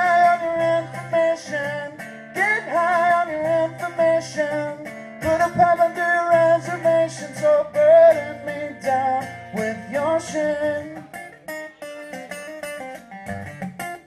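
A man sings over his own acoustic guitar in a live performance, in the closing stretch of a song. Gliding vocal lines carry most of it, and quicker picked guitar notes take over near the end.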